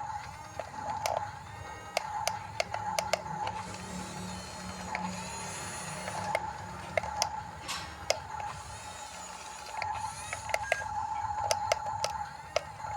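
RC bulldozer's small electric drive motors and gearboxes whining steadily, with many sharp, irregular clicks of its tracks and gears as it works.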